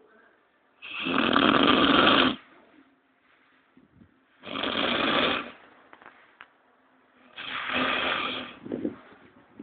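Snoring: three loud, rasping snores about three seconds apart, each lasting a second or so, with quiet gaps between them.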